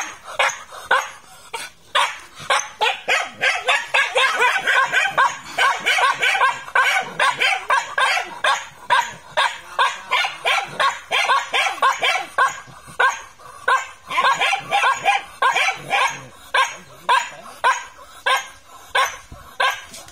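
A dog barking continuously at a porcupine caught in wire mesh. The barks are short and sharp, coming in quick succession at about three a second.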